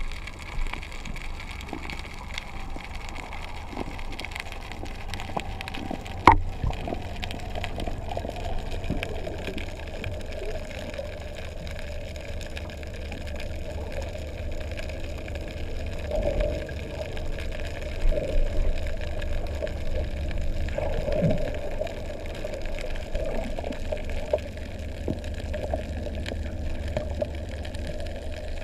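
Underwater ambience picked up by a camera in its housing: water noise over a steady low pulsing throb, with one sharp click about six seconds in.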